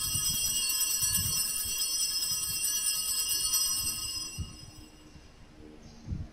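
Altar bells, a cluster of small handbells, shaken in a sustained jingling ring for about four seconds before fading out. They are rung at the priest's communion.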